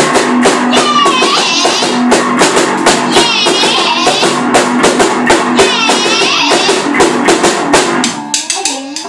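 A live two-piece band of electric bass and a small drum kit playing fast, loud rock, with dense drum and cymbal hits over a repeating bass line. About eight seconds in the full drumming stops and the playing thins out to sparser notes.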